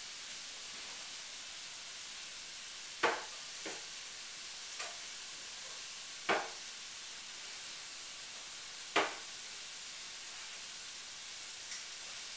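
Small plastic jars being knocked and set down on a wooden shelf by a toddler's hands: three sharp knocks about three seconds apart, with a few lighter taps between, over a steady background hiss.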